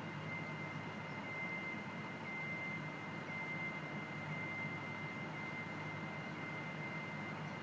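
Motion alarm on a slow-crawling powered work platform beeping repeatedly: one high tone, about one long beep a second with short gaps between, heard at a distance over a steady low city hum.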